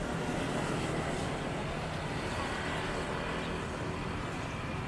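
Street traffic: vehicle engines running past in a steady hum.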